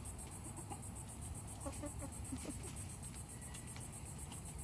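Crickets chirping in a steady, high, pulsing trill, with a few short, soft clucks from the poultry about two seconds in.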